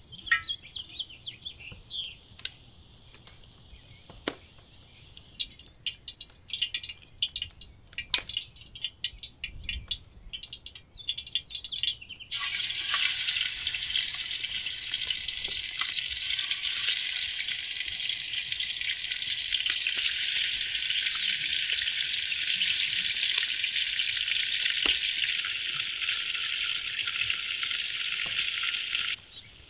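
Olive oil heating in a large aluminium pot, with scattered light crackles and ticks; about twelve seconds in, raw poultry pieces go into the hot oil and a loud, steady sizzle sets in, which cuts off abruptly near the end.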